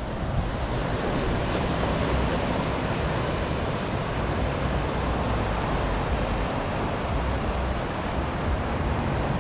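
Ocean surf breaking and washing over shoreline rocks, a steady rushing wash, with wind rumbling on the microphone.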